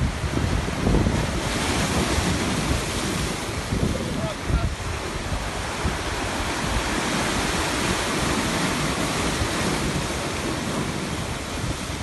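Sea waves washing in and out, the rush of surf swelling and fading over several seconds, with wind buffeting the microphone.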